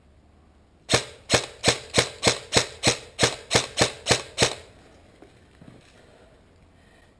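Airsoft gun firing about a dozen rapid semi-automatic shots, roughly three a second, each a sharp crack, stopping about four and a half seconds in.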